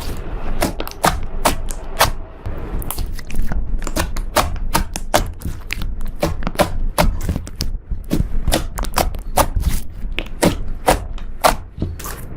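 Slime mixed with crushed eyeshadow being kneaded and pressed by hand, giving a quick, irregular run of sticky clicks and pops, a few each second.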